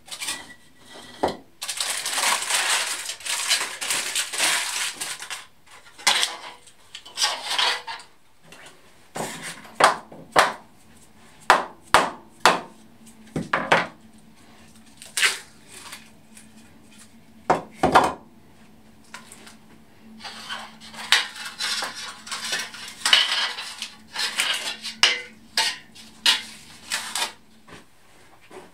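Hands working on a steel workbench: aluminium foil crackling as it is peeled off a wooden mould, with repeated sharp knocks and clatter as wooden blocks, a metal band and clamps are handled and set down on the steel top. Crackly rustling near the start and again near the end, separate knocks in between.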